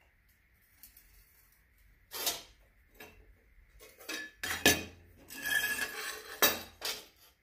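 Flat steel plates and a steel rule being picked up, set down and slid about on a steel welding table: a string of light metallic clanks and scrapes, starting about two seconds in.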